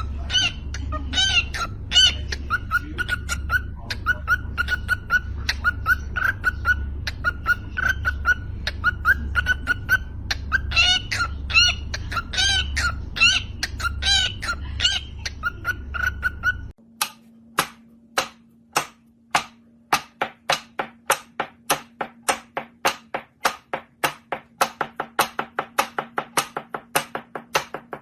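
Birds calling in short repeated chirps over a steady low hum. About seventeen seconds in this cuts to a run of sharp taps or knocks that come faster and faster over a faint steady low tone.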